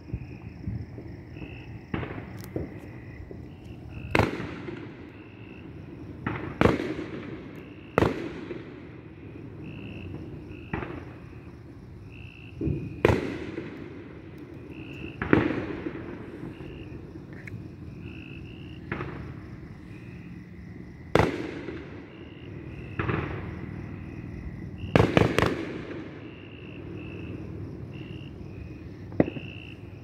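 Neighbourhood fireworks going off intermittently: about a dozen sharp bangs a few seconds apart, each echoing away, with a quick cluster of blasts near the end. Insects chirp steadily underneath.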